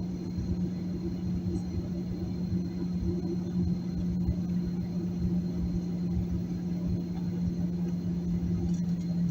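Boeing 737-800's CFM56 engines running at idle, heard inside the cabin as a steady drone with a low, uneven rumble beneath it while the aircraft taxis before takeoff.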